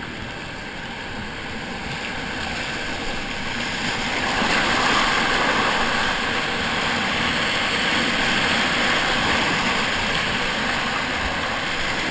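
Whitewater rapid rushing around a kayak, a steady rush of water that grows louder about four seconds in as the boat enters the waves.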